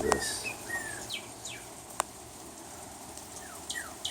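Songbirds calling: short, quick falling chirps, scattered at first, then a rapid repeated series near the end. A single sharp click about two seconds in.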